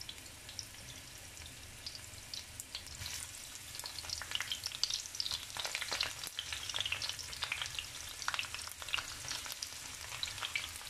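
Sliced onions sizzling in hot olive oil in a nonstick pan, with many small pops; the sizzle grows busier about three or four seconds in as more onion goes into the oil.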